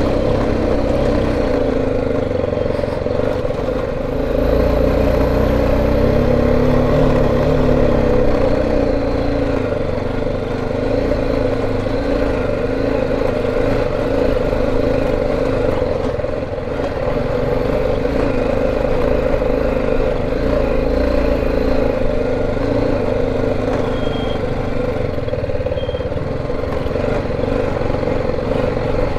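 BMW G 310 GS single-cylinder engine running as the bike is ridden over a rough dirt track. Its pitch rises and falls several times a few seconds in as the throttle changes.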